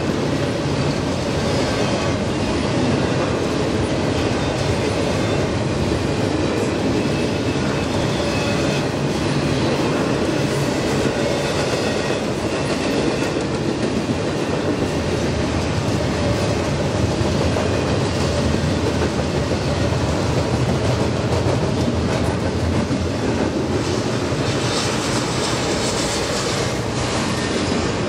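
Double-stack intermodal freight train's well cars rolling past, a steady rumble of steel wheels on rail with clickety-clack over the rail joints.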